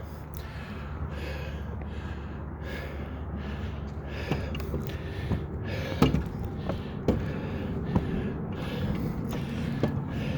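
A man breathing hard and fast, winded from climbing a long flight of tower stairs, with a few footfalls knocking on the steps.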